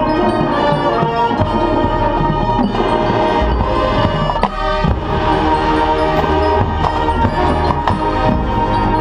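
Marching band playing: sustained brass chords with mallet percussion (marimba and glockenspiel), and a sharp percussion hit about four and a half seconds in.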